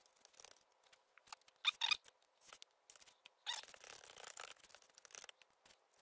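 Bristle brush dabbing and scrubbing wet epoxy into fiberglass cloth along a fin fillet: faint, short scratchy strokes, with a louder pair just under two seconds in and a longer run of brushing in the second half.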